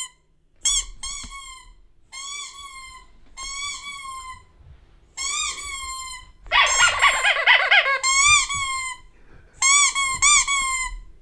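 Recorded dog squeaky-toy squeaks played through a small Kove Bluetooth speaker: a series of short high squeaks, each rising then falling, several in quick pairs. A denser, busier stretch of squeaking comes about two-thirds of the way through.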